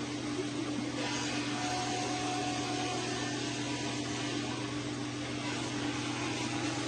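A small electric motor running steadily, with a constant hum and whirr.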